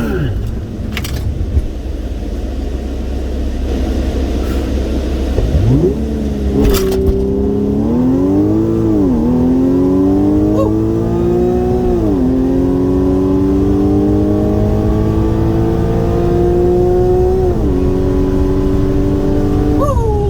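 Car with a catless exhaust heard from inside the cabin on a quarter-mile drag strip run. It rumbles at low revs while staged, then launches about six seconds in and accelerates hard through the gears. The revs climb and drop sharply at each of about four upshifts.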